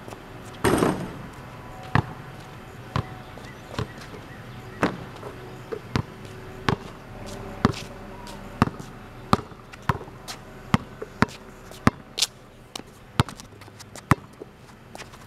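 A basketball bouncing on a concrete driveway, with sharp thuds about once a second that quicken to about two a second later on. About a second in, a longer rattling crash sounds from the portable hoop as a shot lands on it.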